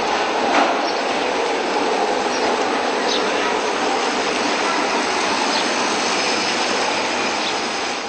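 Car running and driving off after being started: a steady rushing engine and road noise that cuts off suddenly near the end.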